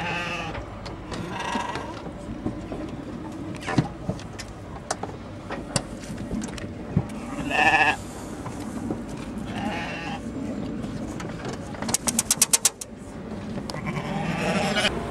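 Sheep bleating inside a livestock truck, about five separate calls, the loudest about halfway through. A quick rattle of sharp clicks comes near the end, over a steady low rumble.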